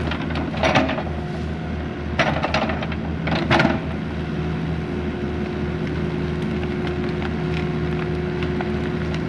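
A 304 mini excavator's diesel engine running steadily with a low throb while it digs out a tree's roots, with three loud, sharp noises in the first four seconds.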